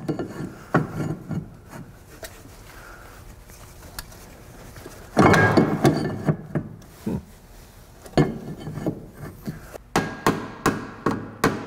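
Rear brake rotor being pushed and worked onto the hub over new parking brake shoes: metal clunks and a scraping stretch as it binds on the shoes, then quick knocks, about three a second, near the end as it is tapped to seat. The binding comes from too much friction material on the shoes.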